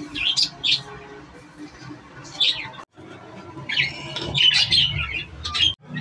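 Pet budgerigars chirping and squawking in short, high-pitched calls, a few at first and then a busy flurry about four seconds in.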